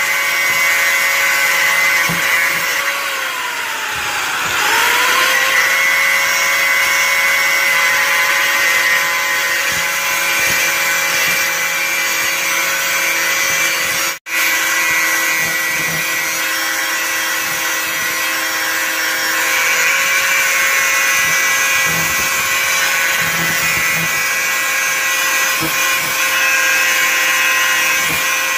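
Electric angle grinder running steadily, its thin cutting disc cutting into a flat metal plate. A few seconds in, the motor's pitch sags under the cut and then recovers, and around the middle the sound drops out for an instant.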